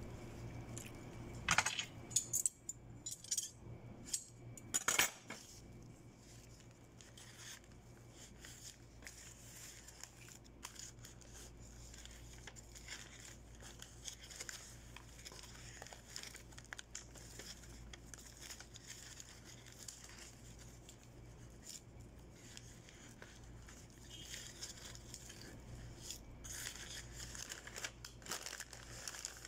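Bouquet wrapping paper and ribbon being handled: crinkling and rustling, with a few sharp louder rustles in the first five seconds, fainter in the middle and busier again near the end.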